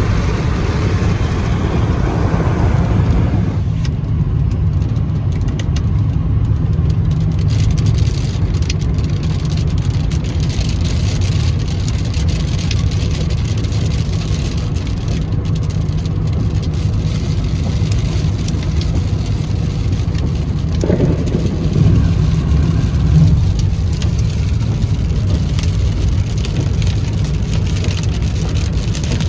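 Car cabin noise at highway speed on a wet road: a steady low rumble of tyres and engine. A brighter hiss over it drops away about three and a half seconds in, and there is a brief louder bump about twenty-two seconds in.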